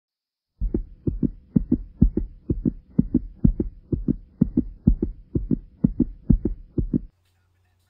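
Logo-intro soundtrack: a pulsing beat of low double thumps like a heartbeat, about two pairs a second, over a faint held tone. It begins shortly after the start and cuts off suddenly about seven seconds in.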